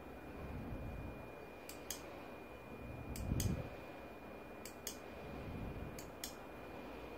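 Sharp clicks in pairs, about every second and a half, from the switch of an LED warning light bar's controller being pressed to cycle its flash patterns, over a steady thin high-pitched electronic whine. A dull thump a little past three seconds in.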